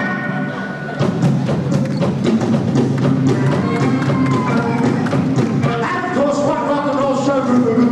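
Live rock and roll band playing a song, with a steady drum beat under guitar and voices.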